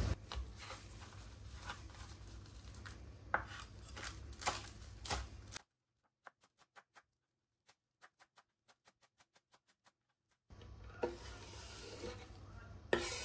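Chef's knife chopping fresh cilantro on a wooden cutting board: a series of light taps of the blade on the board, very faint through the middle. Near the end the board is tipped against a glass bowl, with a louder knock as the chopped herbs go in.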